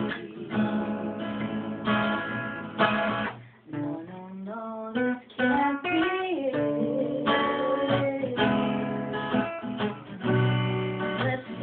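Acoustic guitar strummed in chords, with a woman's voice singing a melody over it; the playing breaks off briefly about a third of the way through, then picks up again.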